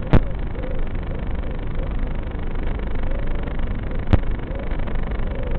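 FPV drone in fast flight: a steady rushing noise with a faint motor whine wavering up and down in pitch, and a sharp click just after the start and another about four seconds in.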